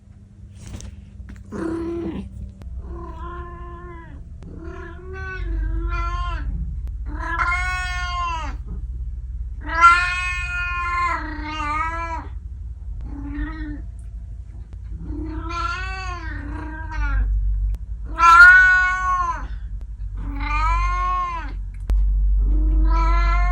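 An elderly domestic cat meowing over and over, about a dozen drawn-out calls that each rise and fall in pitch, over a low steady rumble.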